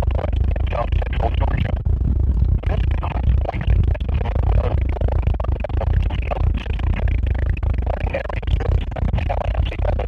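Weather radio broadcast playing through a Midland weather alert radio's small speaker, badly distorted, with a heavy low hum under a voice-like sound that comes and goes.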